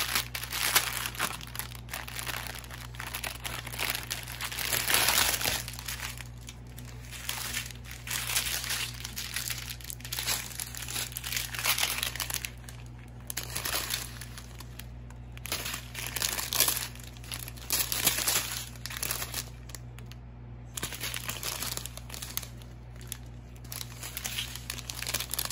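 Small clear plastic bags of round diamond-painting drills crinkling and rustling as they are handled, in irregular bursts.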